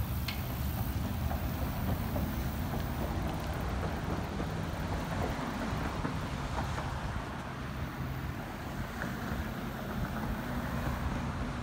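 Wind buffeting the microphone in a low, uneven rumble, over a steady hiss of car traffic on the road.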